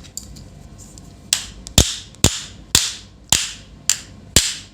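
A run of sharp knocks, about two a second, seven in a row: the sealed plastic case of a 19 V power adapter being struck to crack it open.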